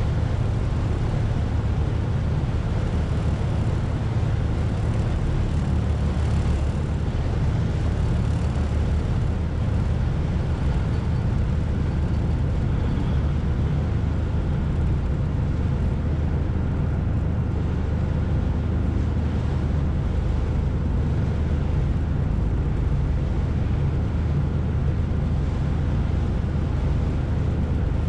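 The George Black ferry's engine running under way with a steady low drone, over an even rush of water and wind.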